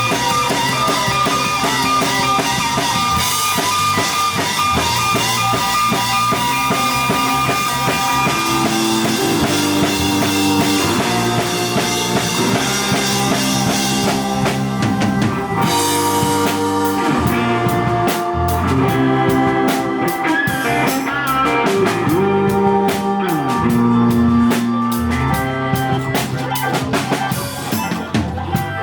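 Live rock band playing an instrumental passage: drum kit, guitar and bass. A little past halfway the bright cymbal wash stops and the drums change to sharp, separate hits.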